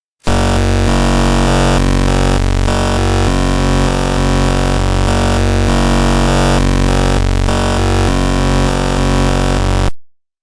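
Image data played back as audio: a loud, harsh buzz of many stacked tones that jump abruptly from one chord-like block to the next every fraction of a second. It starts just after the beginning and cuts off sharply near the end.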